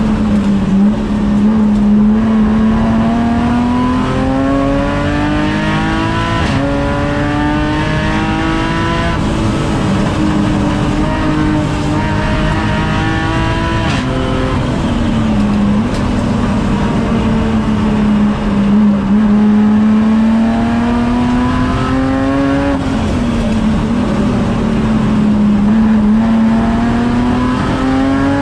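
Supercharged BMW M54B30 straight-six heard from inside the race car's cabin on a hard lap. The engine note climbs under full throttle and falls back sharply several times at upshifts, with a longer drop in the middle as the car slows for a corner before pulling up again.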